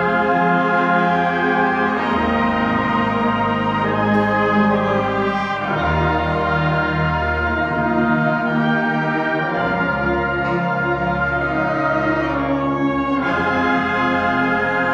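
High school concert band of woodwinds and brass playing slow, sustained chords, the harmony shifting every couple of seconds.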